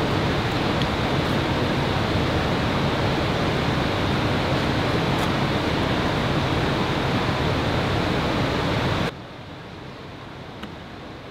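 A loud, steady rushing noise that cuts off abruptly about nine seconds in, leaving a much quieter background hiss.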